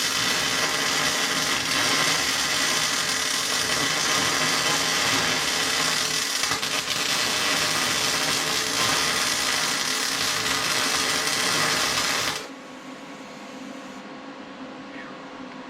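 Electric arc welding a bead along a steel grader blade: a continuous dense crackle and sizzle from the arc that stops abruptly about twelve seconds in, leaving a quieter steady hum.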